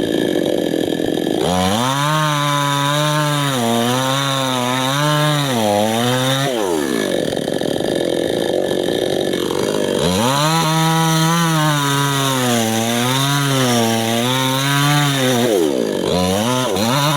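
Small two-stroke chainsaw, used on teak wood, running continuously and changing speed. A steady full-throttle run in the first second and a half and again in the middle alternates with stretches of lower, wavering engine pitch, with the pitch sweeping as it switches between them.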